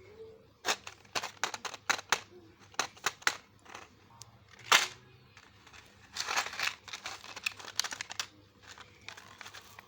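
A toy's packet wrapper crinkling and tearing as it is handled and opened, in a run of sharp crackles. The loudest crackle comes just under five seconds in, with a denser stretch of crinkling from about six to eight seconds.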